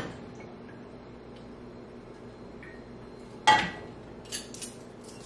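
A wire fry basket is set down in a metal bowl: one sharp clank about three and a half seconds in, followed by a couple of light clinks.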